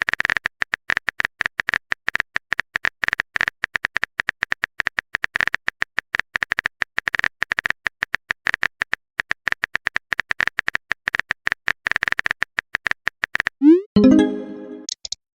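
Rapid, irregular clicks of a phone keyboard typing sound effect. About a second and a half before the end, the typing stops and a short rising whoosh and fading chime sound, a message-sent notification.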